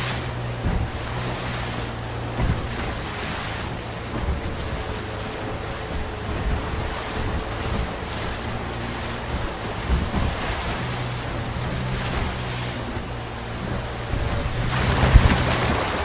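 Tohatsu 9.8 two-stroke outboard motor running steadily under the rush and splash of whitewater and wind buffeting the microphone. Near the end a big wave breaks over the bow with a loud splash.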